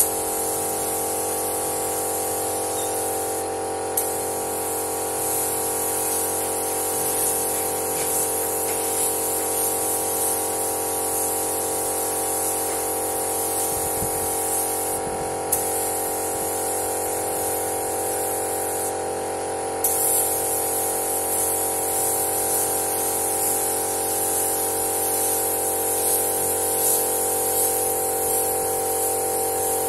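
Compressed air hissing steadily from a gravity-feed paint spray gun as red paint is sprayed onto a car bumper. The hiss stops briefly three times as the trigger is let off, over a steady hum.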